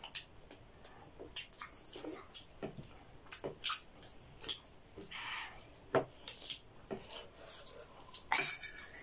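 People eating rice at close range: wet chewing and lip-smacking sounds, with occasional clicks and scrapes of a spoon on a plate, coming irregularly.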